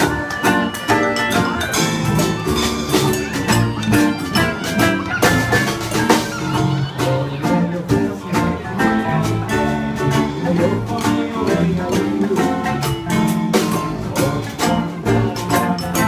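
Live acoustic band music: strummed ukuleles and guitar over an upright bass and hand drum, keeping a steady beat.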